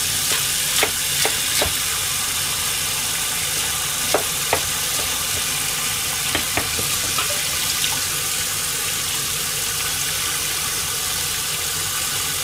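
Kitchen tap running steadily into a stainless-steel strainer of whelks in the sink, a constant splashing hiss. A few small sharp clicks sound in the first eight seconds or so.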